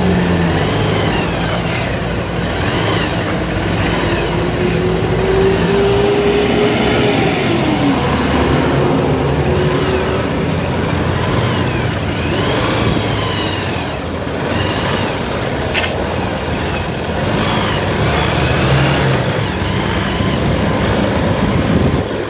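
Motorcycle riding in traffic with a snapped accelerator cable, its throttle worked by pulling the bare cable instead of the twist grip. The engine note climbs slowly for several seconds, then drops about eight seconds in, over steady wind and road noise and the sound of other vehicles.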